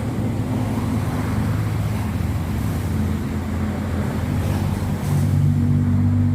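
An engine running steadily with a low hum, getting louder about five seconds in.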